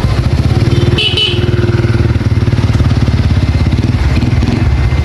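Motorbike engine running steadily close by, with a brief high-pitched squeak about a second in.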